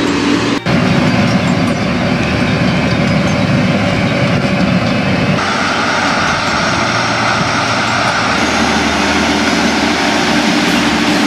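Cat Challenger MT775E rubber-tracked tractor running steadily under load while pulling a four-furrow plough through the soil, with engine and track noise. The sound changes abruptly twice as the shots cut.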